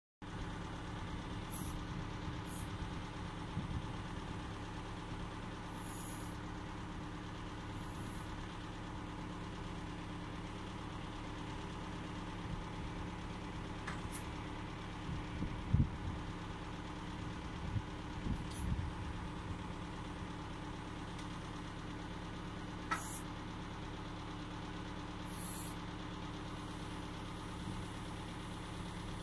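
Engine running steadily at idle, driving the hydraulics of a Forester FC-67 timber crane as it swings a hanging load. A sharp knock comes about halfway through, followed by a few softer knocks, with brief high-pitched hisses now and then.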